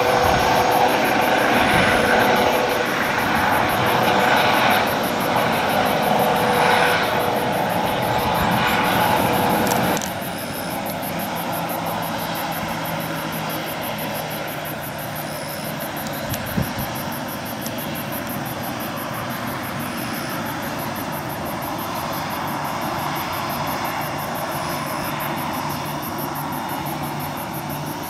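Boeing 737-800's CFM56-7B turbofan engines running at taxi power, a steady jet drone with a held hum. About ten seconds in the sound drops suddenly to a quieter, steady drone.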